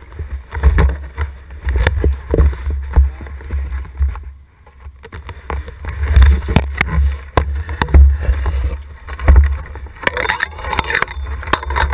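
Wind buffeting the microphone of an action camera mounted on a landing net, in gusts, while the net is swung aboard and handled, giving many sharp knocks and rattles from the net frame. It eases briefly in the middle.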